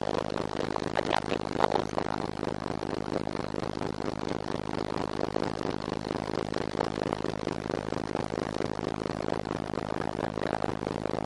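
Ship's hull breaking through sea ice: a dense run of crunching, cracking and scraping over the steady low hum of the ship's engine, with a few louder cracks about one to two seconds in.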